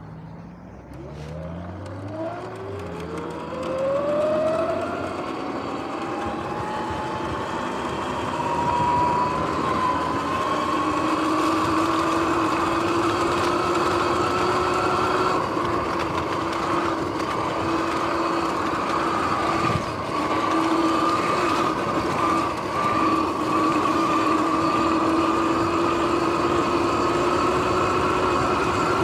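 Sur-Ron X electric dirt bike's motor and drivetrain whining as it pulls away from a stop. The pitch rises steadily for the first several seconds, then holds at two steady tones at speed over tyre and wind noise. The bike's bearings are worn and noisy.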